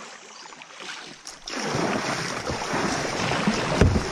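Water lapping around a kayak on a river, with wind on the microphone. It grows louder about a second and a half in, and there is a dull thump near the end.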